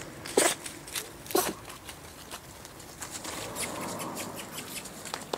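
Whippet puppies scampering and rooting through dry leaves and brush: rustling with quick crackles and taps, two louder sharp ones in the first second and a half.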